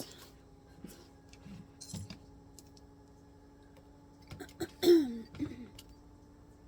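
Faint clicks and handling of the clipped leather being set at the sewing machine over a steady low hum, with a short throat clearing about five seconds in.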